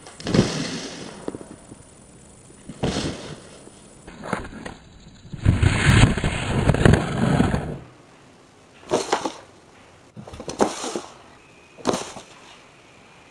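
A cat's scrambling paws and a cardboard box skidding and scraping on a wooden floor, in several short bursts, with a louder stretch of about two seconds near the middle.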